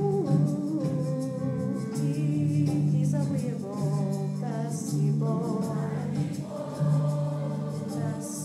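A children's choir singing a song together in a school performance.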